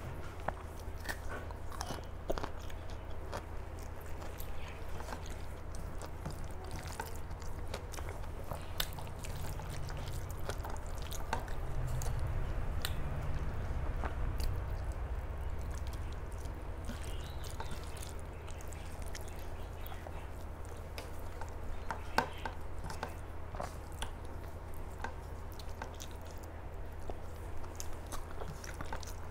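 A person chewing and eating a rice meal close to the microphone: frequent small wet clicks and smacks of the mouth, over a steady low hum.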